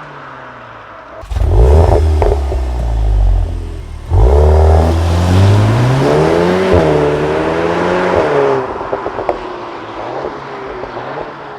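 A VW Golf's turbocharged 2.0-litre four-cylinder with an Akrapovič exhaust, opening up loudly from a low idle about a second in with a pop. The revs climb and fall again in the middle, then the level drops with a few exhaust crackles near the end.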